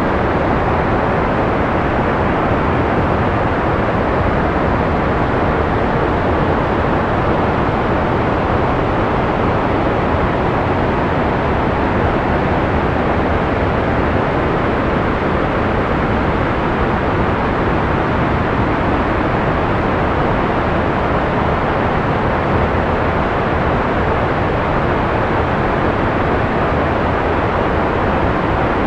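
Steady, unchanging analog white noise used as a sleep sound: an even rushing hiss, rather dark, with most of its weight in the lows and mids and little in the top treble.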